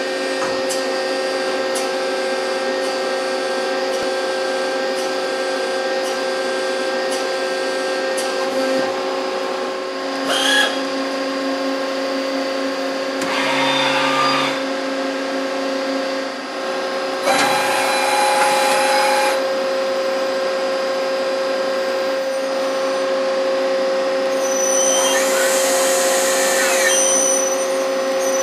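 CNC lathe running with a steady hum made of several held tones. Four times the machine adds a louder spell of rushing noise, the longest about two seconds, about ten and eighteen seconds in and again near the end.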